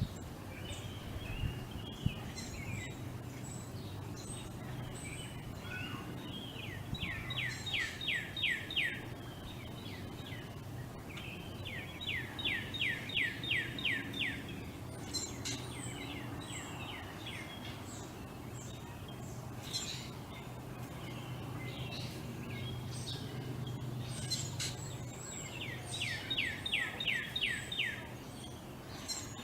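A songbird sings three times, each song a quick series of about eight to ten falling whistles lasting about two seconds. Other birds chirp briefly at a higher pitch in between, over a steady low background hum.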